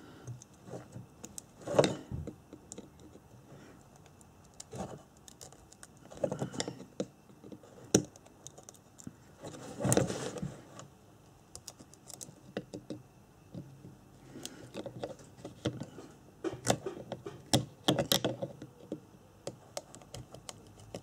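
Small flat-blade screwdriver picking and scraping at the 40-year-old set resin and copper windings of a Honda CB250N ignition stator: irregular clicks and scrapes of steel on hard resin, with a few louder knocks scattered through.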